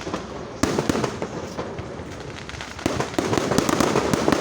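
Fireworks going off: a sharp bang about half a second in and another near three seconds, each followed by dense rapid crackling.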